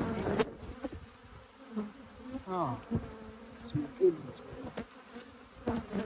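Agitated honey bees buzzing around an opened hive, several flying close past the microphone with quick falling buzzes, along with a few light clicks or knocks. The colony is irritated but, to the beekeeper, does not sound queenless.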